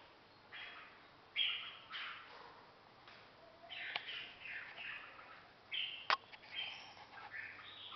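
Caged songbirds singing and calling in short, repeated chirpy phrases, with two sharp clicks about four and six seconds in.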